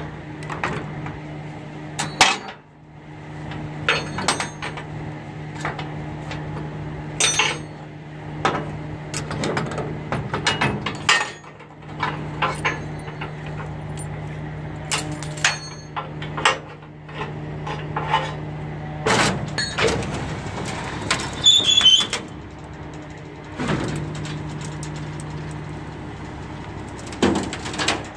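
Irregular metallic clanks and knocks on the steel deck plates of a car-hauler trailer, over a steady low hum that drops out briefly a few times.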